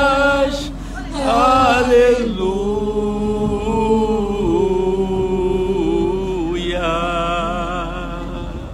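A woman singing a Portuguese worship song into a microphone, drawing out long held notes with a slight waver, as in her sung 'aleluia'.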